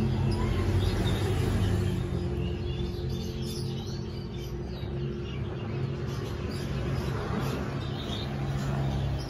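Background ambience: a steady low engine-like hum with faint, scattered high chirps of small birds.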